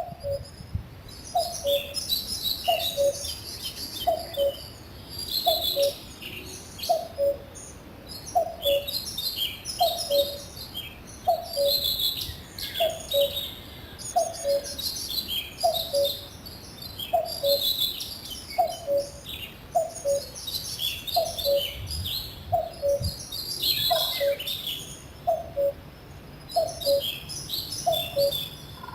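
Common cuckoo calling its two-note falling "cu-ckoo" over and over, about once every second and a half, while several songbirds sing quick, high twittering phrases over it.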